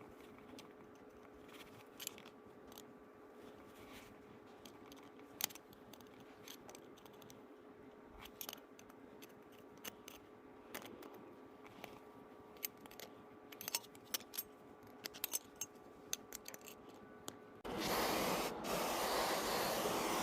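Scattered light metallic clicks and clinks of small parts and tools being handled, over a faint steady hum. Near the end a much louder steady mechanical running noise starts suddenly and keeps going.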